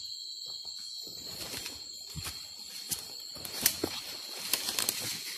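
A steady, high-pitched insect chorus, with scattered clicks and rustles that come more often in the second half.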